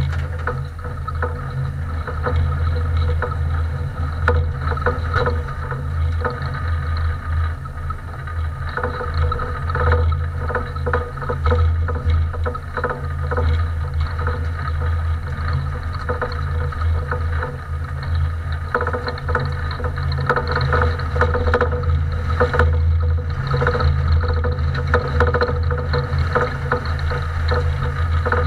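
Compact race car's engine running steadily, heard from inside the cabin as a low, even rumble that rises and falls a little in level.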